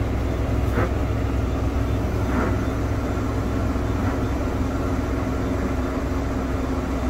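JCB Fastrac tractor's engine running steadily, heard from inside the cab while it wades slowly through deep floodwater. Faint swishes come about every second and a half.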